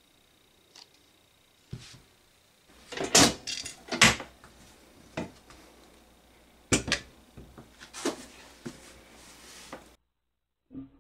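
Metal clanks and knocks as a pressure pot's lid and wing-nut clamps are undone and the lid is lifted off. There is a string of sharp hits, the loudest about three and four seconds in and more near seven and eight seconds.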